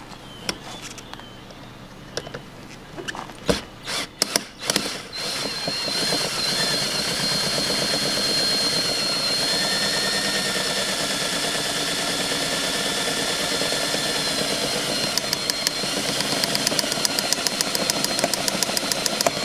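Power drill running steadily with a thin high whine, spinning a stripped, rusted chain-plate nut against a hacksaw blade to cut the bolt off. A few knocks and clicks come first, and from about fifteen seconds a fast, even clicking joins the whine.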